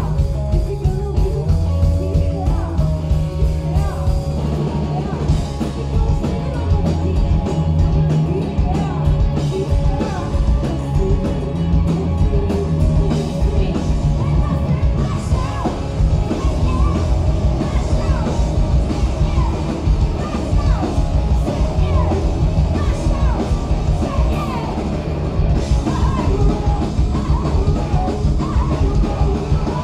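Punk rock band playing live: a woman singing into a microphone over electric guitar, bass guitar and a drum kit.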